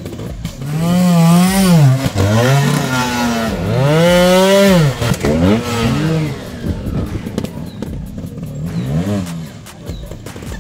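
Trials motorcycle engine revved hard in a quick series of rising and falling bursts. It then settles lower, with one short blip of the throttle near the end.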